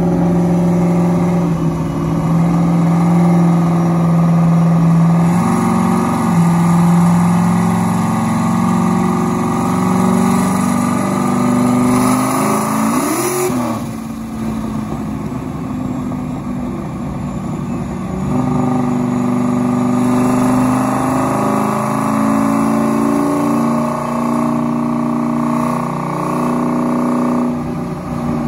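Fourth-generation Pontiac Firebird's V8 running on a chassis dyno. It is held at steady engine speeds that step up and down, with one quick rev up and back down about halfway through.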